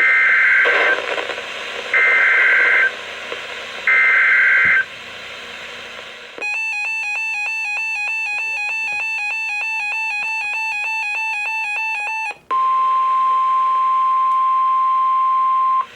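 Emergency Alert System tones on NOAA Weather Radio. First come three bursts of warbling SAME data tones, each about a second long. Then about six seconds of a rapidly pulsing electronic alert tone, then a steady single-pitch warning alarm tone for about three seconds, signalling that a warning message follows.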